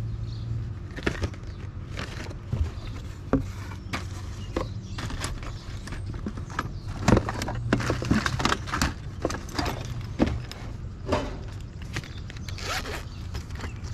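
Hands rummaging through a cardboard box of tools and electrical odds and ends: irregular clatter and knocks of items shifting against each other, with rustling of plastic blister packaging, over a steady low hum.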